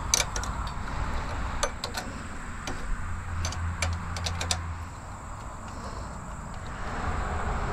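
Light metallic clicks and clinks of a wrench working the 13 mm bolts that hold a pressure-washer pump to its engine, scattered and bunched most closely around the middle. Steady road-traffic noise runs behind.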